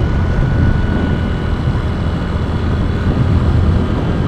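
Steady wind rush on the rider's microphone over a CVT scooter's engine and tyres at cruising speed.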